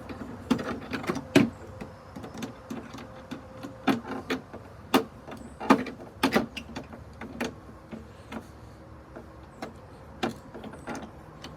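Irregular clicks and knocks of screws being driven into a truck's indicator light housing, with two faint short whirs of a small motor.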